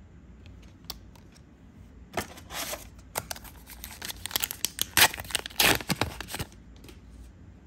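A foil trading-card booster pack being torn open and its wrapper crinkled: a few seconds of sharp ripping and crackling, loudest about five seconds in.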